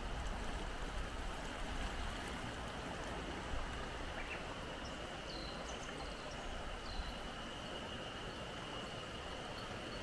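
Steady rushing of the Azusa River, a clear mountain river running over a shallow rapid. A few faint, short high bird chirps come about five and seven seconds in, over a thin, steady high tone.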